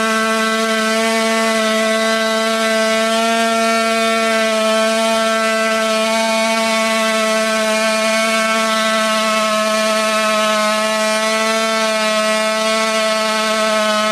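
Tuned two-stroke scooter engine held at high revs during a burnout, its rear tyre spinning on the asphalt. It makes one loud, steady, high-pitched note that doesn't waver.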